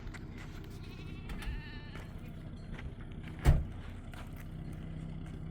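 A short wavering bleat from a sheep or goat, then a single sharp thump, the loudest sound, a little past the middle.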